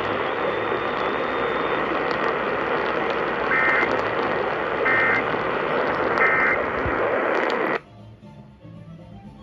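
Emergency Alert System end-of-message data bursts: three short, shrill two-tone digital buzzes about a second and a half apart, over a steady hiss of broadcast noise. The hiss cuts off suddenly about eight seconds in.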